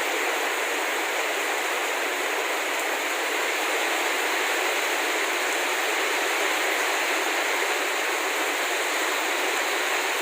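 Rainy-season rain falling in a steady downpour, an even hiss with no let-up.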